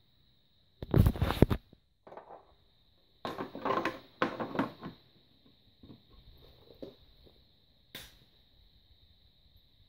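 Plastic handling noise from a twin-tube fluorescent light fitting as its clear ribbed diffuser cover is fitted and the fitting is moved on the floor: scraping, rustling and knocking in irregular bursts, loudest about a second in, with a sharp click near the end.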